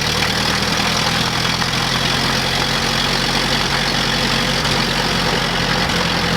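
Vintage car engine idling steadily, a low even hum.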